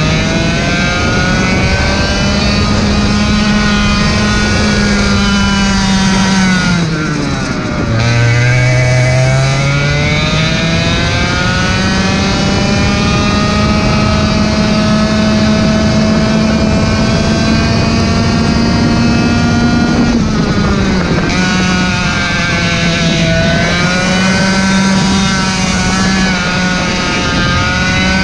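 Racing kart engine heard from on the kart, running at high revs along the straights. Its pitch falls sharply when the throttle is lifted about a quarter of the way in, climbs steadily back up, holds high, and drops briefly a few more times for corners.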